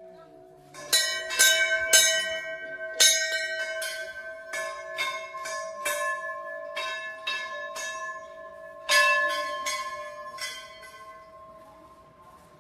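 Temple bell struck over and over at an uneven pace, well over a dozen strikes starting about a second in, each ring overlapping the next, then the ringing dies away near the end.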